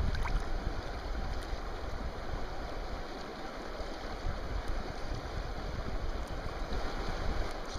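Steady rush of a shallow river's current running over rocks, with a low uneven rumble underneath.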